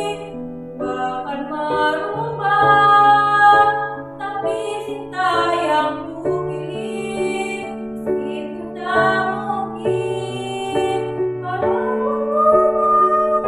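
A girl singing solo with instrumental accompaniment, the voice moving through a melody over sustained bass notes.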